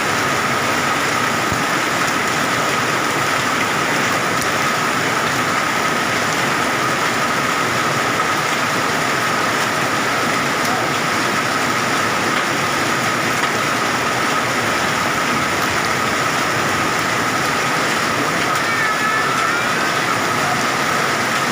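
Torrential rain mixed with hail pouring down in a dense, steady hiss that does not let up. A faint steady high tone runs under it.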